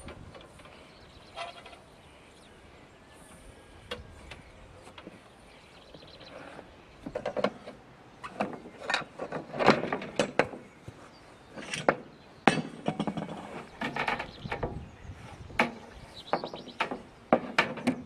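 Hand-lever roller pipe bender and copper tubing being worked on a plywood board: metal clicks, clanks and knocks against the wood. Only a few isolated clicks at first, then frequent irregular clanks and knocks from about seven seconds in.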